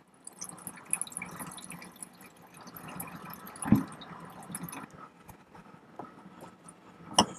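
Formalin trickling and dripping from the spout of a tilted bulk formalin box into a plastic reagent bottle, faint, with a soft knock near the middle and a click near the end.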